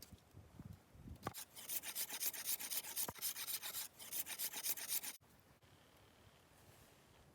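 Rapid rasping scrapes, like a file or blade worked quickly back and forth, for about four seconds, then stopping abruptly. A few soft thumps come just before.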